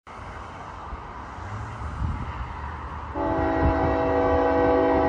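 Approaching CN freight train led by a GE ES44AC diesel locomotive, heard as a low distant rumble, then the locomotive's air horn sounds about three seconds in: a steady multi-note chord held to the end.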